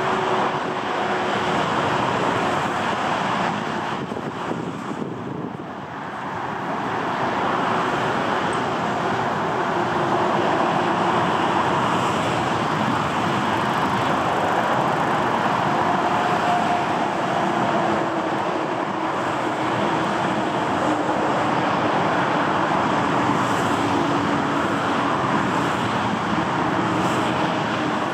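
Airbus A330-941's Rolls-Royce Trent 7000 turbofans running at taxi power: a steady rush of jet noise with a faint whine, dipping briefly about five seconds in.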